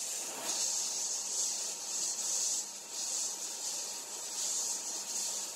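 Sandblast gun in a blast cabinet blasting abrasive onto a small Meccano metal wheel, stripping old red paint and rust: a steady high hiss that wavers a little in loudness.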